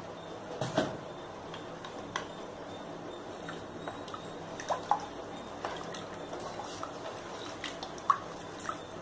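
Rice and chicken in coconut milk boiling in a pot, with bubbles plopping at irregular intervals over a steady hiss and a louder plop about a second in. This is the stage where the liquid is being boiled down.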